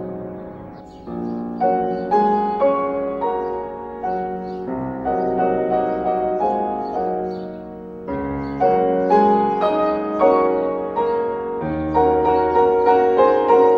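Piano music: a flowing melody of quickly struck notes over a lower accompaniment.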